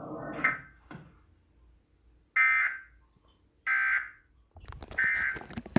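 Weather radio sounding the EAS end-of-message code after a severe thunderstorm warning: three short, buzzy data bursts about 1.3 seconds apart.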